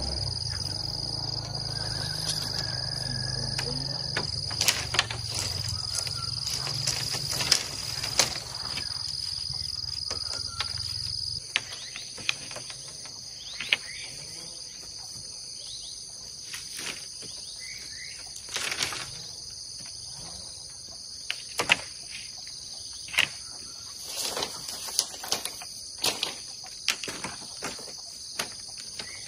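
Steady high chirring of crickets and other insects, with scattered sharp knocks and clatter of bamboo poles being handled and tied into a fence. A low steady rumble underneath stops about eleven seconds in.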